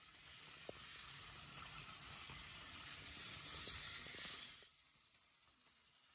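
Counterfeit TrackMaster-style battery toy engine running on plastic track: a faint, steady whirring hiss with a few light clicks, cutting off abruptly about three-quarters of the way through.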